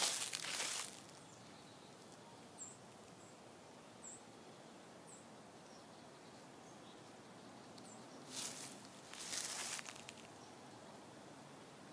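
Footsteps crunching through dry fallen leaves and grass, in two short spells: one at the start and another about eight seconds in. In between, a few faint high chirps sound over a quiet outdoor background.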